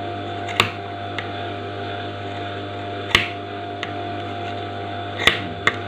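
Scissors snipping through interfaced fabric, a few sharp separate snips, trimming the seam allowance at a pocket flap's corners so the point turns out neatly. A steady low hum runs underneath.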